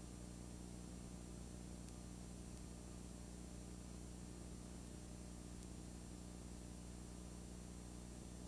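Steady low electrical hum with a faint even hiss: the noise floor of a blank stretch of home videotape after the recording has ended.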